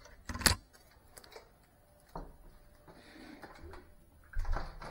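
A few separate knocks and clicks in a quiet room: a sharp click about half a second in is the loudest, with a lighter one around two seconds in and a duller thump near the end.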